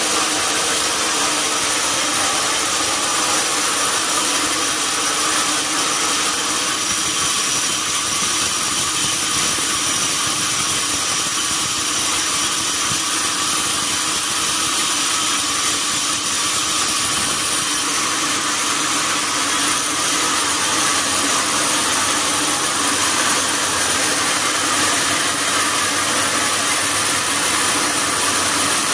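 Sawmill saw running steadily, a loud, continuous mechanical noise; a deeper hum joins about two-thirds of the way through.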